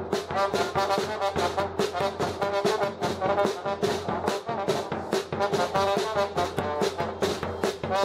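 Street band music: a trombone and a trumpet playing a lively melody together over a steady bass drum beaten with a mallet.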